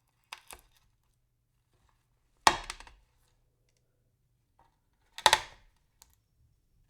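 Pills being crushed: a couple of small cracks, then two loud crunches about two and a half seconds apart, each crackling away for about half a second as the tablets break up.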